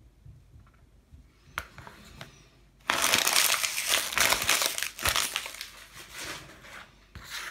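Packaging crinkling loudly as it is crumpled in the hands, starting about three seconds in and thinning into smaller crinkles near the end, after a few faint clicks.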